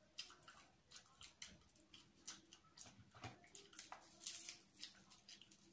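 Close-up eating sounds of fried chicken being eaten by hand: wet chewing and mouth smacks mixed with small crackles as crisp pieces are pulled apart. It comes as an irregular run of short clicks, a little louder about four seconds in.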